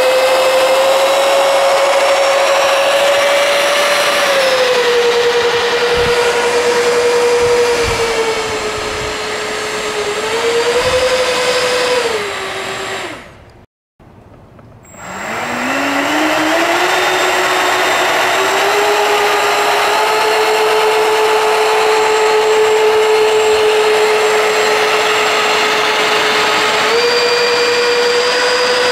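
Twin 50 mm electric ducted fans of a scratch-built RC Gulfstream G650 model jet whining steadily as it taxis, the pitch shifting with the throttle. About halfway through the whine winds down and cuts out briefly, then spools back up with a rising pitch and holds steady, stepping up slightly near the end.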